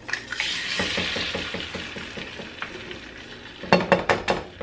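Egg frying in a pan, sizzling most strongly in the first second or so and then easing off, with a quick run of regular strokes, about six a second, in the middle. Near the end comes a cluster of sharp taps as an egg is knocked against the counter to crack it.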